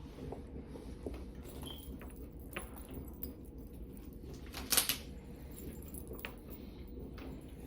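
Small clicks and rustles of a plastic fashion doll and her clothes being handled and adjusted, with one sharper clatter just before five seconds in, over a steady low hum.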